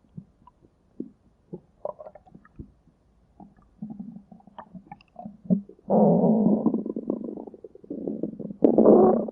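Hungry stomach growling and gurgling. Scattered small gurgles and pops give way to a long, loud rumble about six seconds in, and another loud rumble comes near the end.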